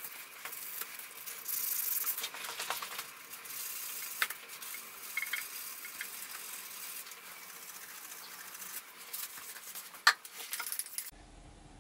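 A gloved hand scrubbing and wiping the rusty steel face of a milling-machine accessory, an uneven hissy rubbing that swells and fades, with scattered small clicks. A sharp knock about ten seconds in is the loudest sound.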